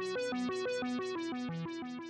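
Background music: a quick, even run of electronic keyboard notes, about six a second, beginning to fade near the end.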